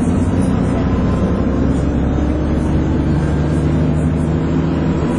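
Dennis Trident 2 double-decker bus with Alexander Enviro 400 body under way, its engine and drivetrain giving a steady droning hum with the vacuum-cleaner-like whine that bus enthusiasts call 'hoovering'.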